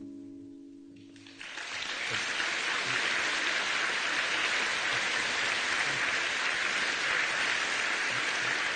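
The last chord of an acoustic guitar rings out and fades, then about a second and a half in an audience breaks into steady applause.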